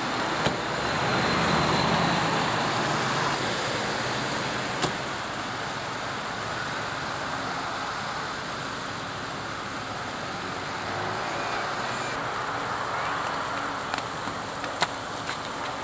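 Road traffic going by on a highway: a vehicle passes close in the first few seconds, then a steadier rush of passing traffic. A few sharp clicks stand out now and then.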